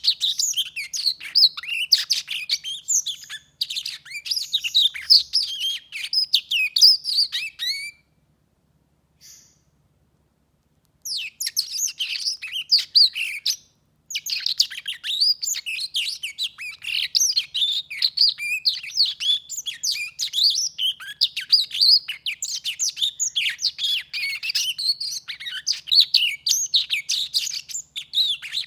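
Black-throated canary singing a long, fast warbling song of quick chirps, glides and trills, breaking off for about three seconds about a third of the way in and again briefly about halfway through.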